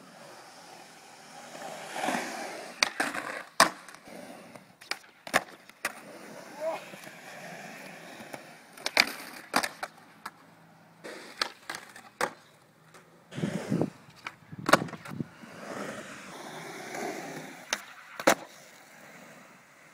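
Skateboard urethane wheels rolling on smooth concrete, broken again and again by sharp clacks of the board's tail popping and the deck landing on the concrete.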